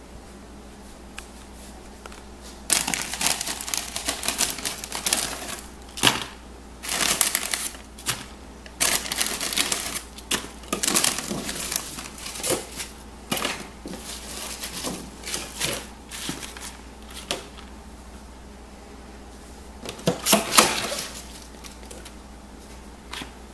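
Salad greens and their plastic packaging being handled: crisp romaine and mixed leaves rustling and crackling against a plastic container, in irregular bursts, with a pause before a last burst near the end.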